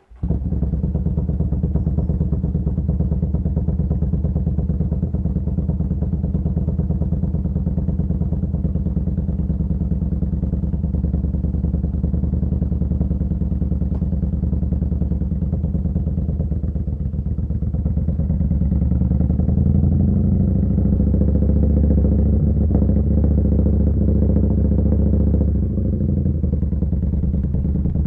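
Yamaha Bolt's air-cooled V-twin running through a Vance & Hines slip-on exhaust, a steady low pulsing note. The note shifts and gets slightly louder about two-thirds of the way in.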